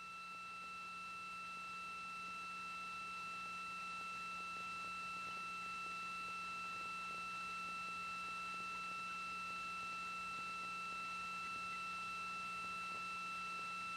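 Steady electronic tone on the broadcast audio feed: two pure pitches, one an octave above the other, held unchanged, over a faint low hum and light hiss.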